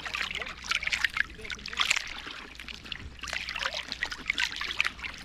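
Shallow seawater lapping and splashing right against the microphone of a camera held at the water's surface: a dense, irregular run of small splashes and trickles.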